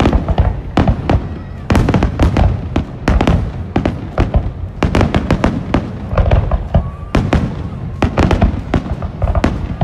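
Fireworks display: aerial shells bursting in rapid, overlapping bangs with crackle between them, several a second. The barrage starts abruptly.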